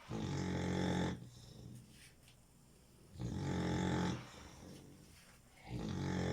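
Bully-breed puppy snoring: three loud, pitched snores about a second long each, coming roughly every three seconds.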